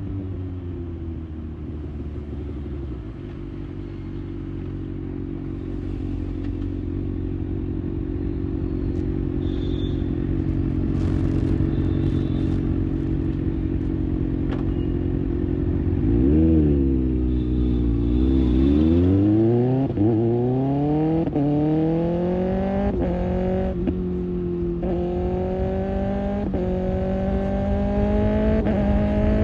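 Kawasaki Ninja ZX-6R's inline-four engine through an IXIL aftermarket exhaust while riding: a steady engine note for the first half, then the revs dip and rise, climbing through several gear changes toward the end.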